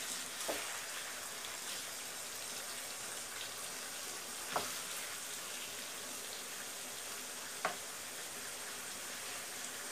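Beef pieces sizzling steadily as they fry in a pan, their liquid cooked off and the meat browning. A spatula knocks against the pan three times as the meat is stirred.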